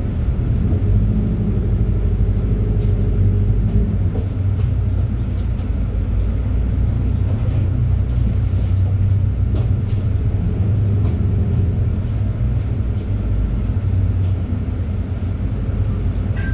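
City bus driving, heard from inside the cabin: a steady low engine and road rumble with scattered light rattles and clicks.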